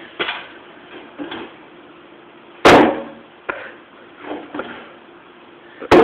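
Two loud bangs about three seconds apart, something hard being struck or slammed, with fainter knocks between them.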